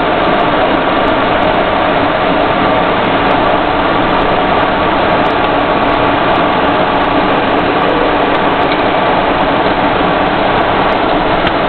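Steady engine and road noise inside the cab of an armored military vehicle driving in convoy, with a faint steady whine running through it.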